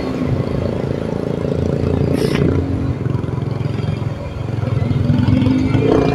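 Motorcycle engines running as a group rides along, a steady engine rumble with wind noise. There is a brief hiss about two seconds in, and the engines ease off after the middle and pick up again near the end.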